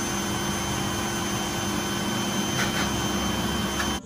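Pet grooming blower running steadily, blowing air through its hose onto a wet Persian cat's fur to dry it after a bath. It stops abruptly near the end.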